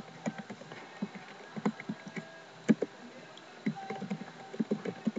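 Computer keyboard being typed on: irregular key clicks, several a second, with a short pause about three seconds in.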